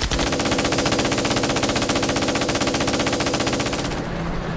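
Machine gun firing one long, very rapid continuous burst that stops about four seconds in.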